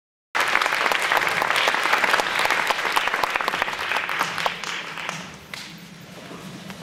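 Audience applauding, starting abruptly just after the start and dying away over the last couple of seconds.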